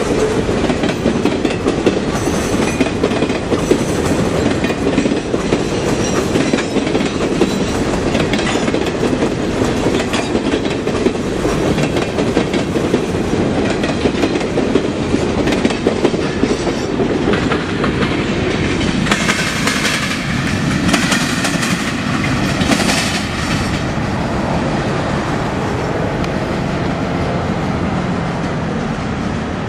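Norfolk Southern freight train's boxcars rolling past at close range: a steady rumble and clatter of steel wheels over the rails. A stretch of sharper metallic rattling comes about two-thirds of the way through.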